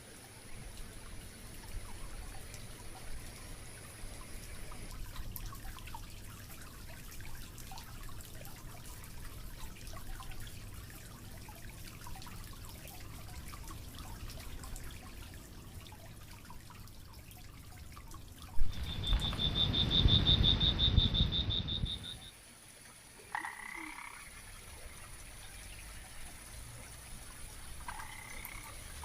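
Forest sounds: a faint steady crackle, then a loud, rapid pulsing trill for about three seconds with a low rumble under it, and two short calls later on.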